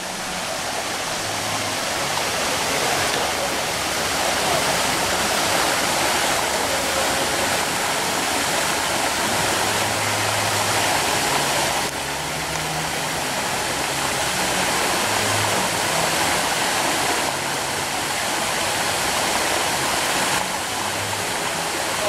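Rushing water of a rocky forest stream and a tall waterfall: a steady, dense rush that drops in level briefly about halfway through.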